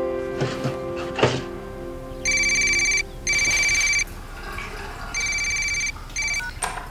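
Mobile phone ringing with a bright electronic ringtone for an incoming call: three ringing bursts, each under a second long, starting about two seconds in.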